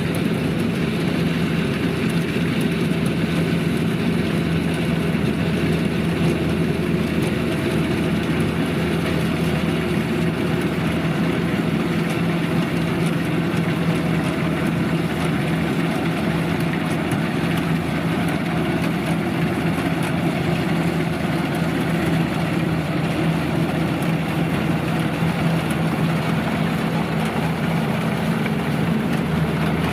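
Kubota DC-93 rice combine harvester's diesel engine running steadily under working load, an even drone with the clatter of its threshing and cutting machinery.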